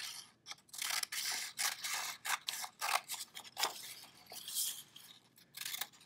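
Scissors cutting strips from a sheet of red paper: a run of irregular snips with the paper rustling as it is handled.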